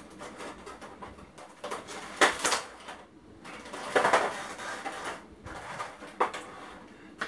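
Clear plastic figure packaging crinkling and crackling as it is handled and pulled apart, in irregular bursts, the loudest about two seconds and four seconds in.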